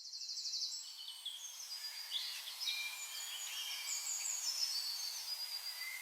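Several birds singing at once: overlapping high chirps, whistles and trills, with a fast trill in the first second, over a light background hiss.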